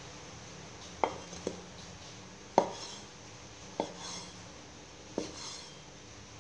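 A cleaver chopping soft, peeled roasted eggplant on a wooden chopping board: five separate knocks of the blade hitting the board, unevenly spaced, the third the loudest.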